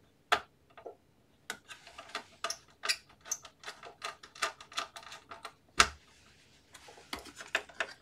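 Magnetic screwdriver driving a small holding screw into the metal SSD drive cage: a run of irregular light clicks and ticks, with a sharper click just after the start and another just before six seconds.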